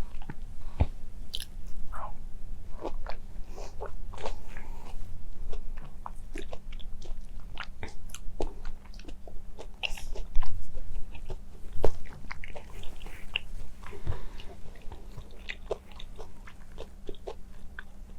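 Close-miked chewing of a mandarin orange: irregular small clicks and crackles of biting and chewing, with louder bites around ten and twelve seconds in.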